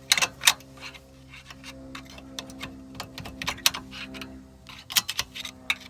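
Sharp metal clicks and scraping as a tool pries the rear brake caliper off its bracket on a Ford Focus, in a quick cluster just after the start and again about five seconds in, over a faint steady hum.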